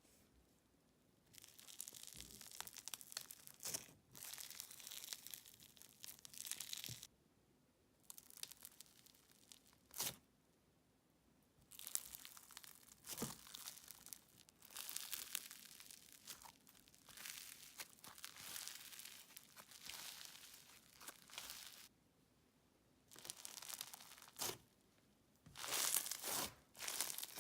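Crunchy floam slime worked by hand, its foam beads crackling and popping in stretches of two or three seconds with short pauses between, plus a few sharper clicks.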